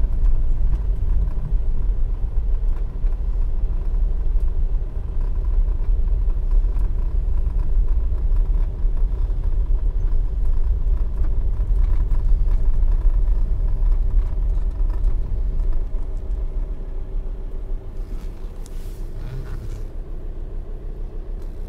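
A car driving slowly on a dirt road: a steady, deep engine and tyre rumble. It turns quieter about sixteen seconds in, as the car eases off.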